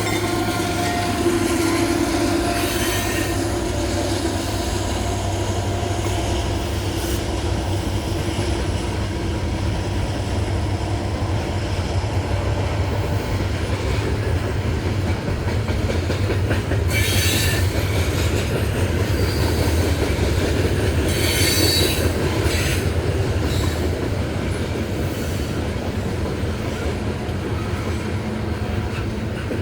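Loaded Norfolk Southern coal train rolling past, with a steady low rumble and clatter of wheels over the rails. Brief high wheel squeals come about 17 and 21 seconds in.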